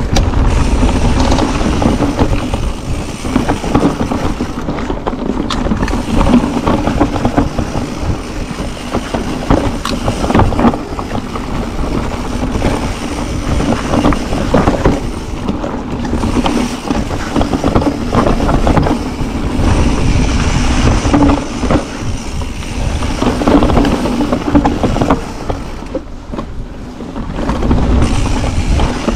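E-mountain bike descending a dirt trail: tyres rumbling over the ground while the frame, chain and parts rattle and knock over bumps, loud and uneven, easing briefly near the end.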